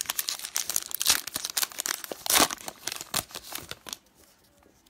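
Foil trading-card pack being torn open by hand, the wrapper crinkling and crackling. Two louder rips come about a second and two and a half seconds in, and the crackling stops about four seconds in.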